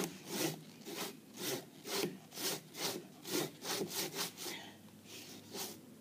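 Hand saw cutting through a palm tree trunk in repeated strokes, about two a second. The strokes quicken a little past the middle, then stop briefly before two last strokes near the end.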